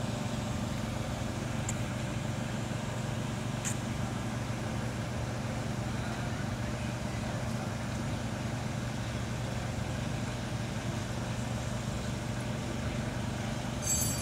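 Forklift engine idling steadily, with a brief click near the end.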